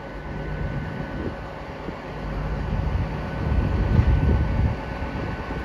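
Transport for Wales Class 197 diesel multiple units running at the platform: a low engine rumble with a faint steady hum, swelling about halfway through.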